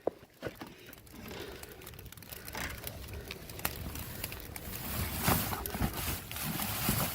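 Rummaging in a dumpster: trash bags and packaging rustling and crinkling, with scattered knocks and clatters as an item is pulled out, growing busier in the second half.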